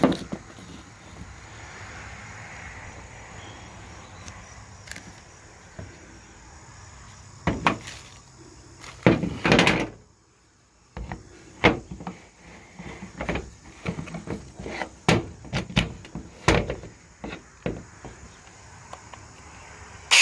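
Handling noise: a run of separate knocks and clicks as a small cordless mini chainsaw and its parts are handled. The saw's motor is not running. There is a steady background hiss in the first half, and a brief drop to near silence about ten seconds in.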